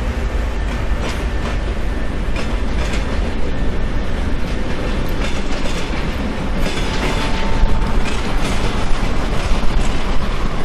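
Diesel locomotive running under load, a sound built from recordings of Russian TEP70 locomotives for a model of the Brush HS4000 Kestrel, with the rhythmic clickety-clack of wagon wheels passing over rail joints. The clatter gets busier about halfway through as the wagons go by.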